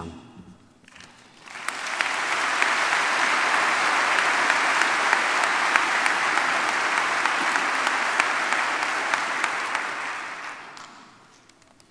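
A large congregation applauding: the clapping builds about a second and a half in, holds steady, and fades out near the end.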